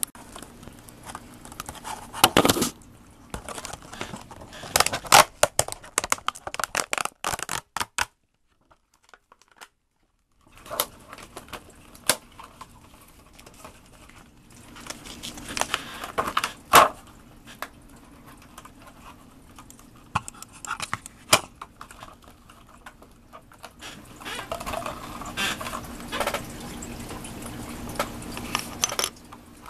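Packaging of a wireless mouse being torn and pulled open by hand: irregular crackling, tearing and sharp clicks of plastic and card, broken by a brief silent gap about eight seconds in.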